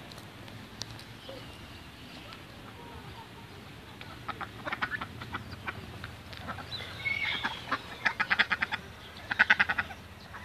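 Domestic ducks quacking in quick runs of short calls. The calls start about four seconds in and are loudest near the end.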